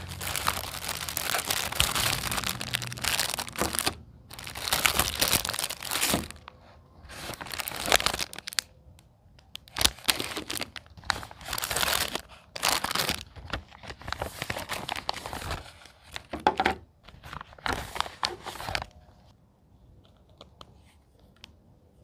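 Packaging crinkling and tearing in repeated bursts as fidget toys are unwrapped, stopping about nineteen seconds in.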